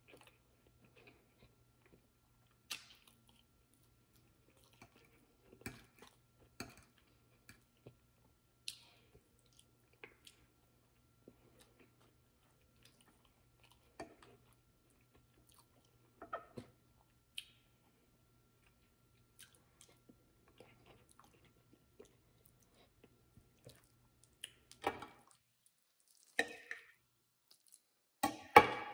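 Faint close-up chewing and mouth sounds of someone eating soft baked chicken and mashed potatoes, with scattered light clicks of a fork on the plate and in a foil packet. Louder clinks of cutlery on the plate come in a few clusters near the end.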